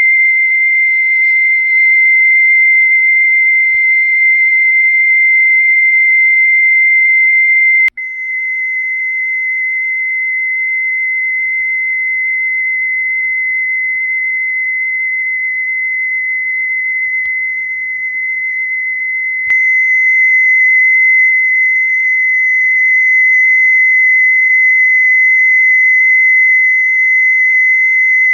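A steady high-pitched test tone played from a cassette test tape through boombox speakers. It breaks off abruptly twice, about 8 and 19.5 seconds in, as the tape moves to another boombox, and the tone shifts slightly each time. The pitch differs a little from deck to deck with each machine's tape speed, and wow and flutter are audible.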